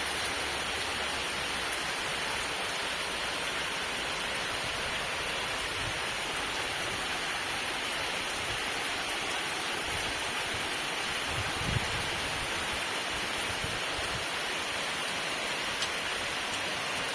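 Steady, calm rain falling, an even hiss of drops with one brief low thump about two-thirds of the way through.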